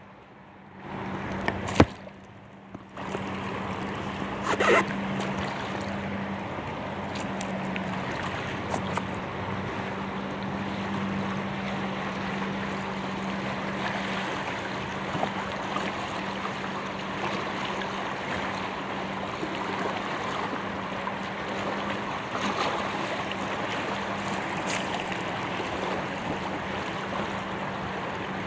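Steady rush of choppy river water and wind on the microphone, heard from low on the surface of an inflatable kayak, with a steady low hum underneath. A knock comes about two seconds in and another near five seconds, before the water noise settles in fully.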